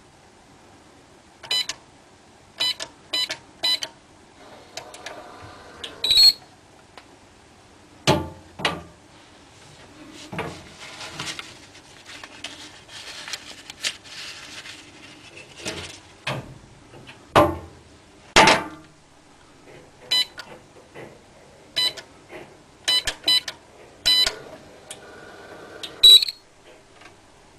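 Hotel-room electronic safe keypad beeping as a code is keyed in: four short key beeps and then a louder tone, later five more key beeps and a loud final beep near the end. In between come a few knocks and thuds of the safe door and a stretch of paper banknotes rustling.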